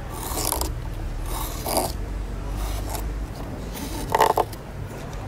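Hook knife slicing shavings from the inside of a spalted sycamore cup: three short scraping cuts, the last and loudest about four seconds in.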